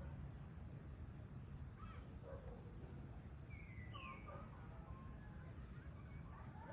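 Faint outdoor evening ambience: scattered bird chirps, with a couple of quick gliding calls about halfway through, over a steady high-pitched whine and a low background rumble.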